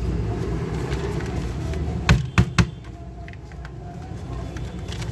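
Three sharp clicks in quick succession about two seconds in, over a steady low rumble.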